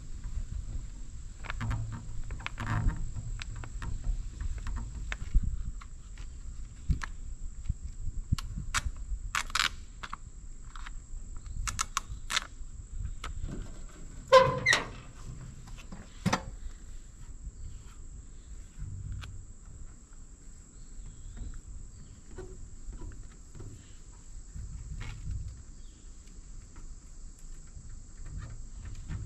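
Scattered light clicks, taps and rustles of hands working a vinyl decal onto an excavator's sheet-metal side panel, then a louder metal clack with a brief ring about halfway through as the engine-compartment side door latch is worked open. A faint steady high insect drone runs underneath.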